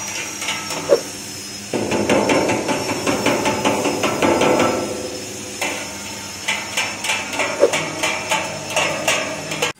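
Maggot and insect drying machine running: its rotating stainless-steel drum turns with a rapid, uneven clatter of metal knocks over a steady high whine.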